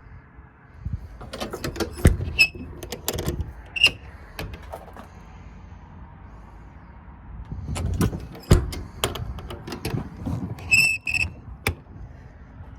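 Metal service-body compartment doors being opened and handled: latch clicks, knocks and rattles, with a few short high metallic squeaks.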